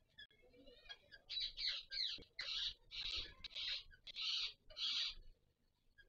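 A mating pair of rose-ringed (Indian ringneck) parakeets calling: a rapid run of about eight loud, raspy calls over four seconds, after a few faint chirps at the start.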